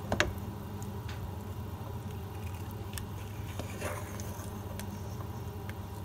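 Dinuguan (pork blood stew) cooking in a pot and being stirred with a ladle: scattered soft pops and clicks over a steady low hum, with a sharper click right at the start.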